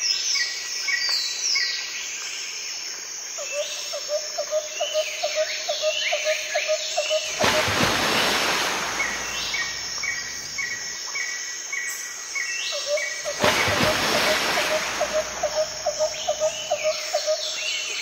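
Mixed wild birdsong: repeated short chirps and down-slurred whistled calls over a steady high insect drone. A fast pulsing low call runs for a few seconds twice, and two rushes of noise swell and fade, about seven and thirteen seconds in.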